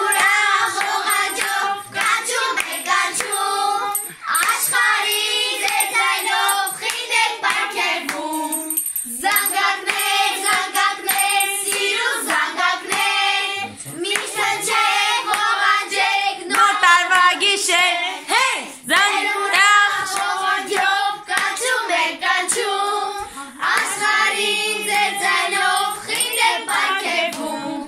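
A group of girls and children singing a song together, with hands clapping along.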